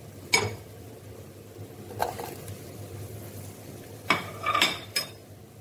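Diced potato going into browned mince in an aluminium pot, with a wooden spoon knocking and scraping against the pot: a sharp knock about a third of a second in, another at about two seconds, and a quick cluster of knocks near the end.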